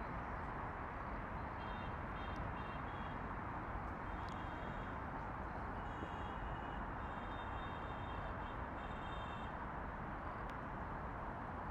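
Outdoor ambience: a steady, even hiss of distant traffic, with short high-pitched chirps repeating in quick groups through most of it.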